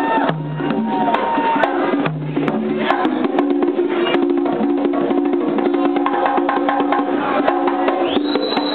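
Live conga drums played by hand in a fast, dense solo, with held notes from another instrument sounding underneath.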